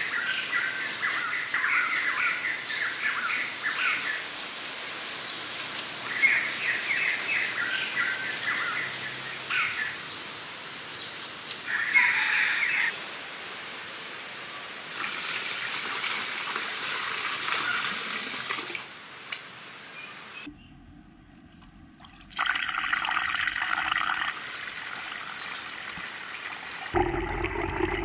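Birds chirping in short repeated bursts for the first half. After that, water from a small spout pours and splashes steadily into a garden fish pond. A brief quiet gap breaks the water sound, and it grows fuller near the end.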